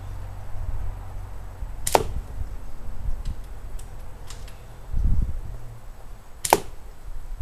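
Two sharp shots from a spring-powered L96 airsoft sniper rifle, about four and a half seconds apart, with a few fainter clicks between them.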